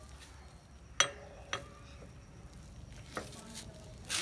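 Three sharp metal clinks with a brief ring, the loudest about a second in: a steel wheel wrench knocking against a car's wheel nuts as it is fitted to loosen them.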